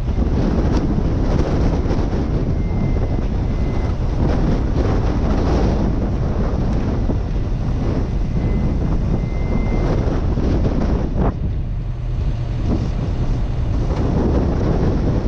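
Strong, gusting wind buffeting the microphone, a heavy low rumble that eases briefly about two-thirds of the way through.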